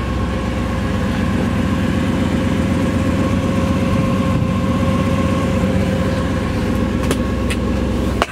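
A 327 cubic-inch small-block V8 with headers, in a 1967 Chevrolet Camaro RS, idling steadily.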